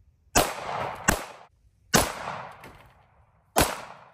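9mm pistol fired four times in quick, uneven succession, each sharp shot followed by a short echo.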